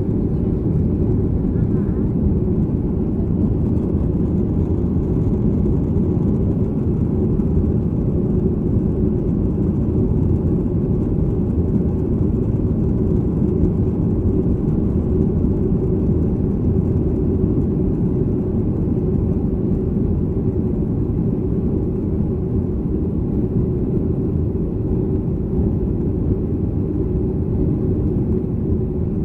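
Steady low rumble of a Boeing 737-300's engines and airflow heard inside the passenger cabin, even in level throughout.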